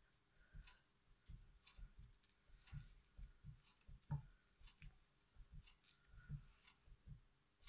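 Faint soft clicks, each with a low thump, coming about three a second in an uneven rhythm, with one louder click about four seconds in.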